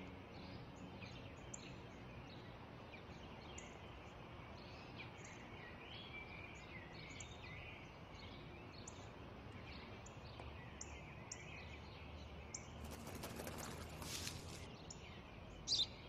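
Small birds chirping and twittering over faint garden ambience. A brief rustle comes about thirteen seconds in, and a louder chirp near the end.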